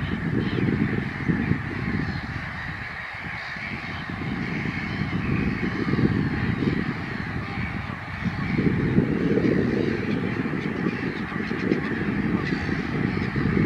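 Wind buffeting the microphone in gusts, with a steady background of distant birds calling.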